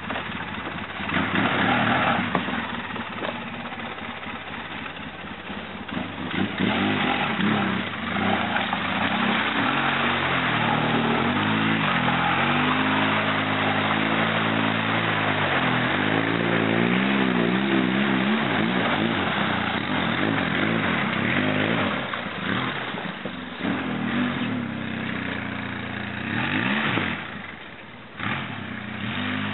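ATV engine revving up and down as the quad ploughs through deep mud and water, with splashing. It is loudest as it passes close in the middle, and it grows fainter near the end.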